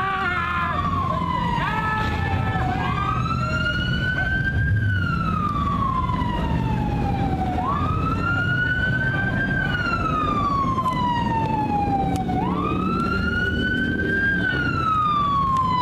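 Police car siren wailing: a slow rise-and-fall tone sweeping up and down about every five seconds, over a low steady rumble.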